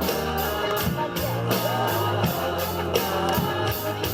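Rock music with electric guitar chords over a drum kit keeping a steady beat, about three hits a second.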